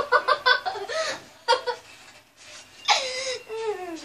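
Children giggling and laughing in quick, rapid peals, then a high, drawn-out cry that slides down in pitch about three seconds in.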